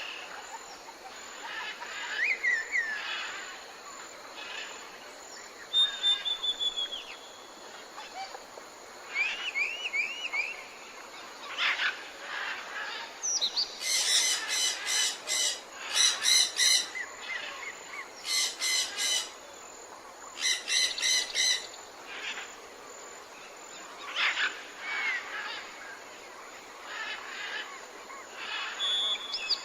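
Several songbirds calling and singing, with short whistled notes, rising glides and trills. The busiest and loudest stretch is a run of rapid repeated chirps from about the middle to two-thirds of the way through.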